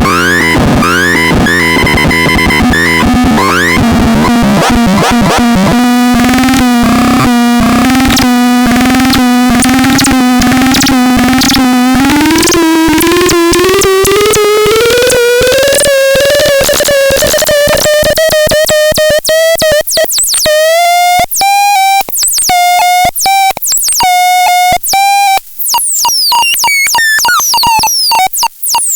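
Synthesized electronic sound effects. A rapidly pulsing buzzy tone holds low, glides upward through the middle, then breaks into short chopped beeps with high chirping sweeps near the end.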